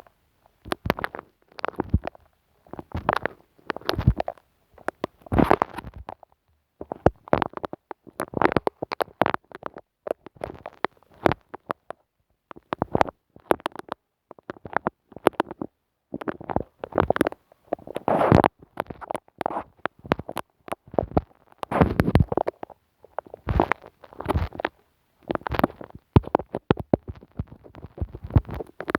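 Close-miked sticky sounds from a glue stick worked on the microphone: crackling, tacky clicks and squishes in short bursts, with brief silent gaps between them.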